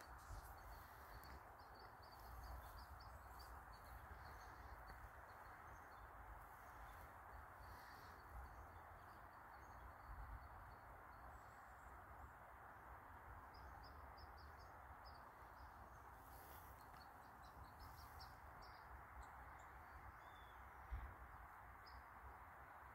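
Near silence, with faint, scattered high chirps of small birds over a steady low hiss.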